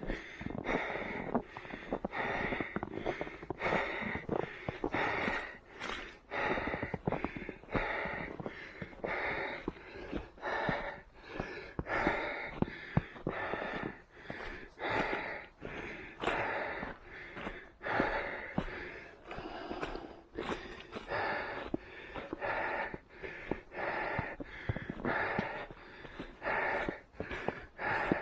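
A runner's heavy, rhythmic breathing, about one breath a second, with sharp footfalls in snow between the breaths.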